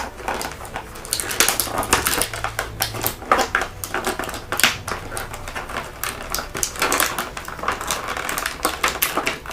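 Plastic blister tray crinkling and clicking as an action figure is pulled free of it, with irregular sharp clicks and rustles throughout.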